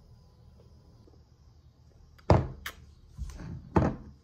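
A few knocks and thuds in the second half, the loudest about halfway through and another near the end, with a short click and a brief rustle between them.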